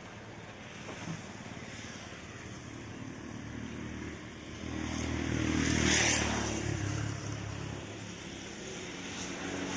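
A motor vehicle's engine passing close by on the road, growing louder to a peak about six seconds in and then fading.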